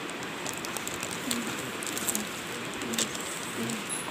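Steady background hiss of shop room tone with a few light clicks and taps as a blister-packed memory card and a small plastic gadget are handled. Faint short low tones sound now and then in the background.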